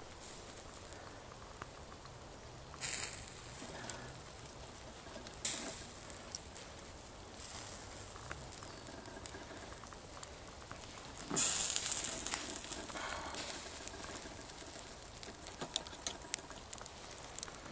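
Beef steak sizzling on a wire grill over a campfire, with the fire crackling. A few louder bursts of sizzling stand out, the loudest about eleven seconds in.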